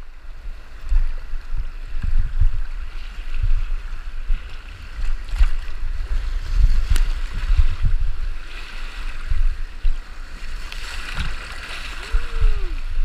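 Whitewater rushing and slapping against an inflatable canoe running rapids, heard as an uneven low rumble full of thumps, with a hiss of churning water and a few sharp knocks.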